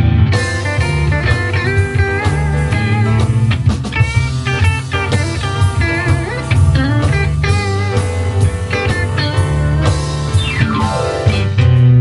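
Live band playing: a guitar lead with bent, wavering notes over upright bass, drums and keyboard. Near the end a long glide falls steadily in pitch.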